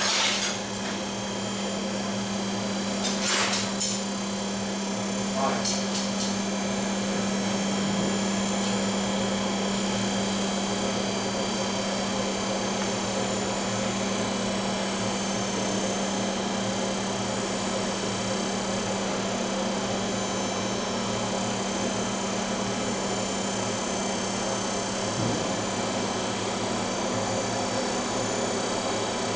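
Steady workshop machine hum with a constant low drone. A few knocks and clanks come in the first six seconds.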